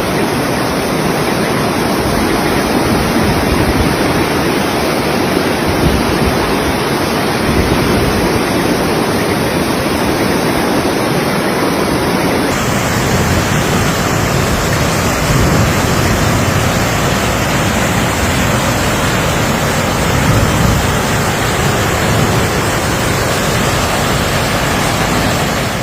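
Floodwater rushing through a street, a loud steady rush of water, with wind buffeting the microphone. The sound shifts about halfway through, as one stretch of flood footage gives way to another.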